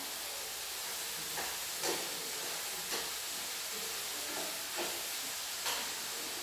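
Greens stir-frying in a pan on a gas stove, with a steady sizzling hiss. Chopsticks knock lightly against the pan about five times as the food is stirred.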